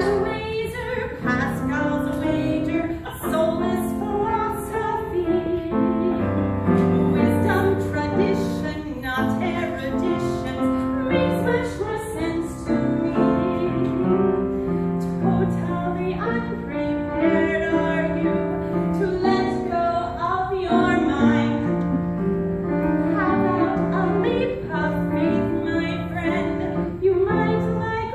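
Music: a woman singing with piano accompaniment, in long held notes over chords.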